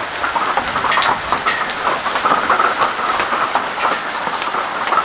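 Heavy rain with hailstones a little bigger than marbles, a dense, steady clatter of many hard impacts under the hiss of the downpour.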